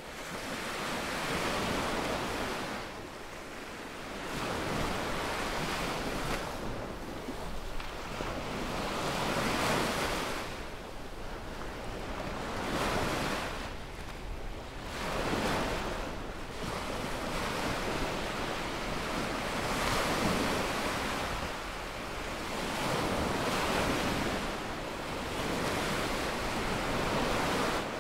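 Small ocean waves breaking and washing up a sandy beach, the surf swelling and easing about every three to four seconds, with wind on the microphone.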